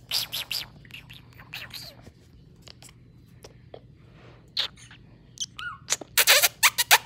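White-bellied caique playing in a fleece blanket: a series of short, sharp squeaks and scuffles, with a dense run of them near the end.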